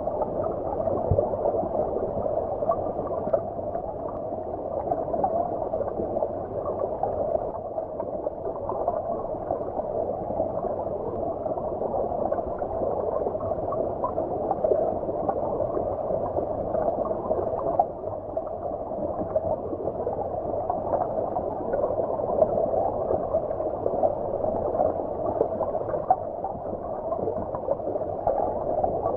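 Flowing stream water heard as if from underwater: a steady, muffled gurgling rush with the high end cut off.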